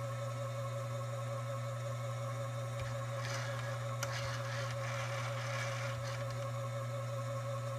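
Cowells 90 ME lathe running steadily with a constant low hum and a steady higher whine. A scratchy, hissing noise comes and goes about three to six seconds in.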